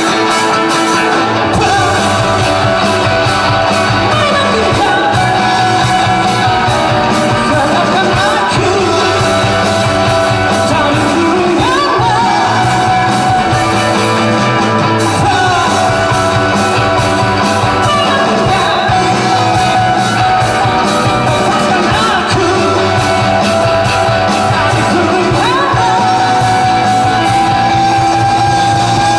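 A live rock band playing: electric guitar and drums under a singer's voice, steady and loud, with sustained sung notes that slide in pitch here and there.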